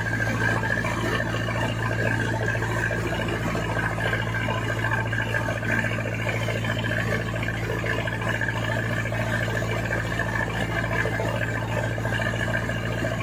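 A fishing boat's inboard engine running steadily at cruising speed, with water rushing along the hull.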